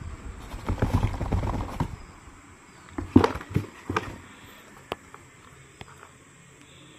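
Cats scrabbling about in a cardboard box, rustling shredded paper for about a second, then a cluster of sharp knocks and crackles about three seconds in, followed by a few faint ticks.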